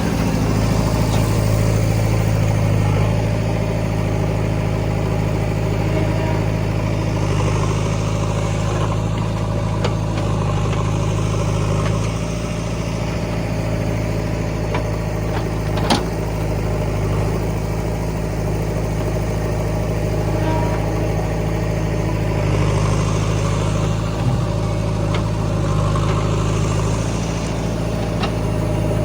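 Diesel engine of heavy earthmoving machinery running steadily, rising and falling a little in level, with a sharp knock about halfway through and two fainter ones near the end.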